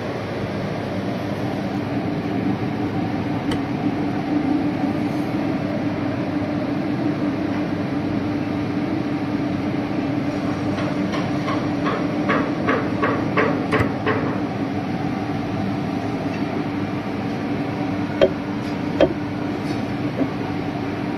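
Steady rumbling background noise, with a run of light clicks, about three a second, for a few seconds midway, and two sharp knocks near the end.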